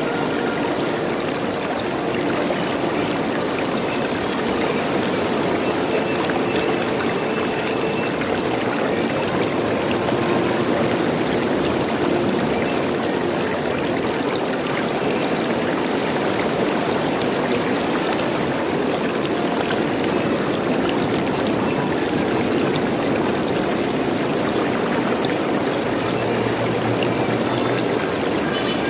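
Running water gurgling and trickling steadily, like a small stream.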